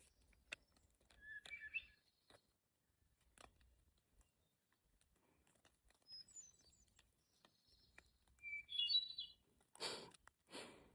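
Songbirds chirping faintly in short bursts, three times, with scattered light ticks. Near the end come two brief, louder rustling thumps.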